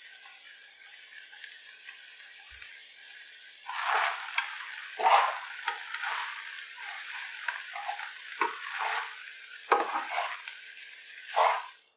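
Fried rice sizzling steadily in a pan. From about four seconds in, a spatula stirs and tosses it with repeated scraping strokes and sharp clicks against the pan, stopping just before the end.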